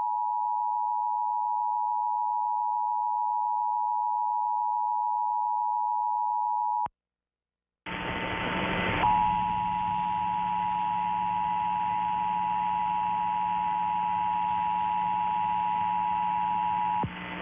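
Emergency Alert System attention signal: the steady two-tone alert sounds for about seven seconds and cuts off into a second of silence. A hiss with a low hum then comes in, and the two-tone returns over it about a second later for about eight seconds, stopping shortly before the end while the hiss carries on.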